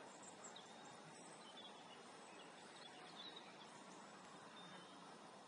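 Near silence: faint, steady outdoor background noise with a few faint, short high chirps.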